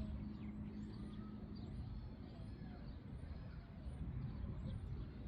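Outdoor park ambience: a bird's high, thin chirp repeating about twice a second over a steady low rumble.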